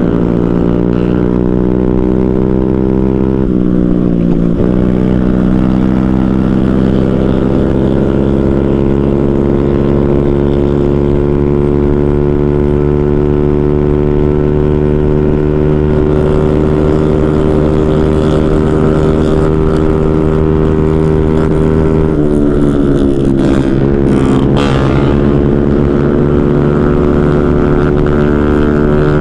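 Motorcycle engine running at steady high revs while riding. The pitch dips briefly about four seconds in, and again around twenty-two seconds in, before climbing back.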